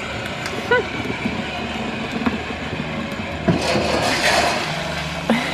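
Lightning McQueen ride-on toy car driving over a concrete patio: its small electric drive whirring steadily while the hard plastic wheels rumble and clatter on the concrete, louder for a moment about two-thirds of the way through.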